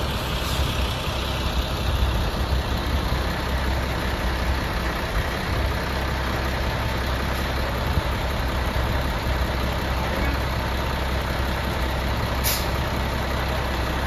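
Heavy diesel engine of a wheel loader carrying a tyre handler, idling steadily with a deep low hum, with one short high click or hiss near the end.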